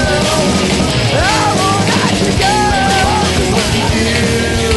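Loud, fast rock music with a singing voice, in a punk-rock style, laid over the footage as a soundtrack.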